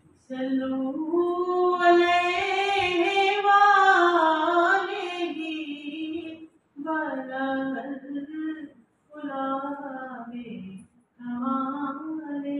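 A woman singing a naat, an Urdu devotional song in praise of the Prophet, unaccompanied. One long held phrase with a wavering pitch lasts about six seconds, followed by three shorter phrases with brief pauses between them.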